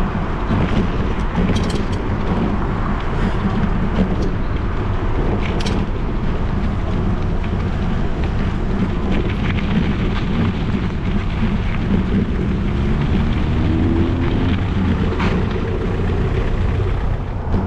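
Steady wind rumble on an action camera's microphone while cycling, mixed with road traffic passing alongside. Near the end a vehicle's engine briefly rises in pitch.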